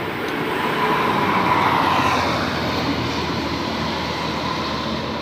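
A large bus driving past: engine and tyre noise swells to its loudest about two seconds in, then eases off as it moves away.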